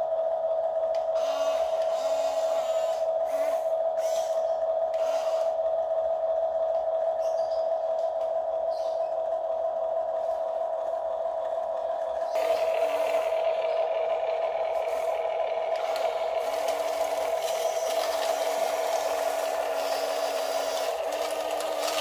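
Small electric motors and plastic gearboxes of a Huina 1569 RC bulldozer: a steady high whine, with shorter, lower motor whines starting and stopping and light clicks and clatter as the tracks and blade work. The sound gets busier and noisier about halfway through.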